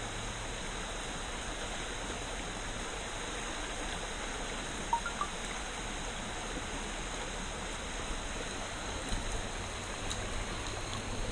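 Shallow mountain stream running over stones: a steady rush of water. Two brief high chirps about five seconds in.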